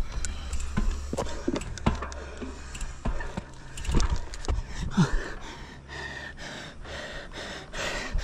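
A cyclist's heavy breathing with a few short gasps, from the effort of a steep climb, over wind rumbling on the microphone for the first few seconds and scattered light clicks.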